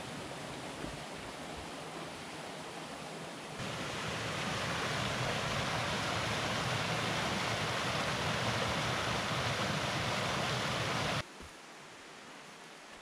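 Rushing water in the mill race by the sluice gate. A few seconds in it gives way to the louder rush of a stream running over rocks, which cuts off suddenly near the end to a quiet woodland background.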